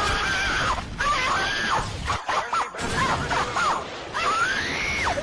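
A run of several high-pitched screams, each held for under a second, over a noisy background; the last one rises in pitch near the end.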